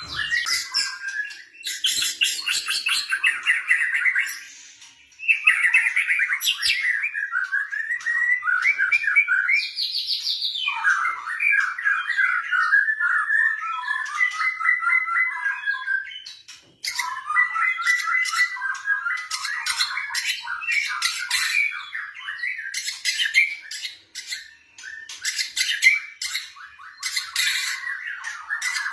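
White-rumped shama (murai batu) singing a long, varied song of fast chattering phrases and whistled notes, broken by a few brief pauses.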